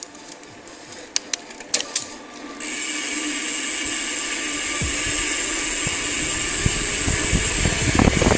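Mountain bike riding on a concrete road, heard from a handlebar-mounted camera. A few sharp clicks come first, then a steady hiss of wind and tyre noise starts suddenly. Low knocking rumble from the bike jolting over the road builds toward the end.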